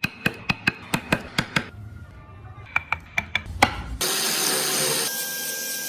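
Woodworking tool sounds: a run of sharp, ringing strikes at about two or three a second, then an abrupt cut about four seconds in to a power tool running with a steady, loud whining hiss.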